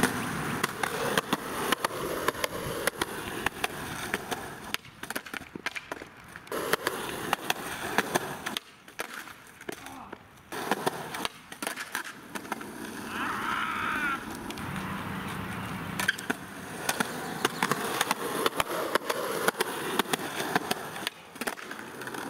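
Skateboard rolling on asphalt and concrete, with many sharp clacks of the board and wheels striking the pavement.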